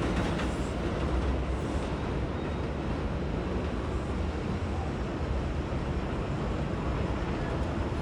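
Subway train moving off: the last clicks of wheels over rail joints in the first half-second, then a steady low rumble.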